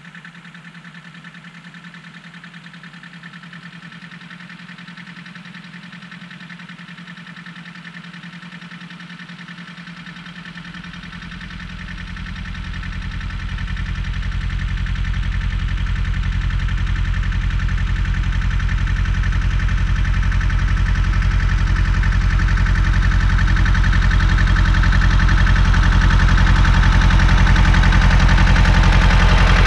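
Old tractor's engine running at a steady pace as it pulls a field roller, growing steadily louder as it approaches and loudest near the end.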